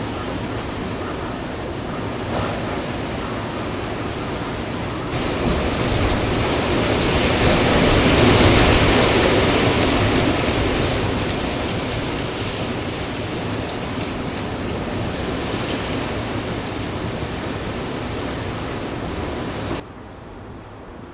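Strong typhoon wind blowing. It swells into a louder gust several seconds in, eases back to a steady rush, and cuts off abruptly near the end.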